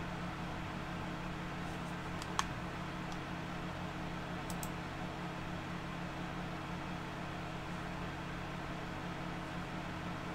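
Steady hum of a loud desktop computer's fans, with a few faint clicks: one about two seconds in and a quick pair about four and a half seconds in.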